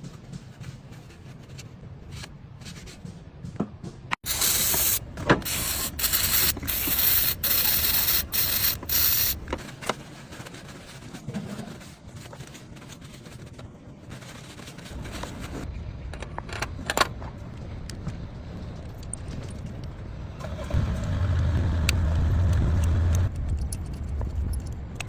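An aerosol can spraying in several sharp hissing bursts, then a car engine running for a couple of seconds near the end.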